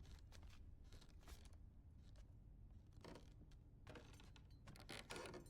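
Near silence: a faint low hum with a few soft scattered clicks, the hushed stretch of a horror film's soundtrack.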